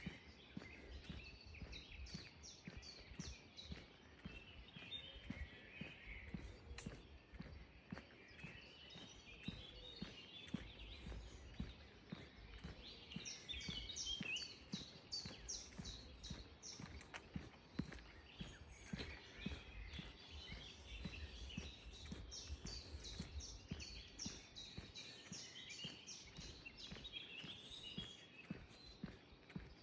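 Wild birds singing and chirping, with fast runs of high notes coming and going, over footsteps on a path and a low wind rumble.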